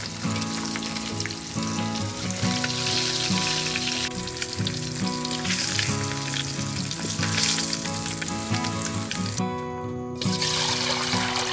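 Whole river fish sizzling as they fry in hot oil in a wok, a dense crackling hiss that breaks off briefly near the end and then resumes. Light background music plays underneath.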